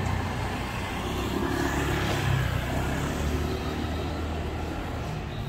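A motor vehicle passing by in the street, its engine rumble and tyre noise swelling to its loudest about two seconds in and then easing off.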